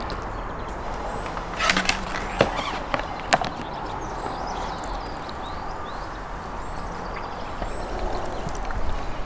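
A few sharp knocks and clatters, bunched together about two to three and a half seconds in, as plastic trays and fish are handled on a table, over a steady outdoor background hiss.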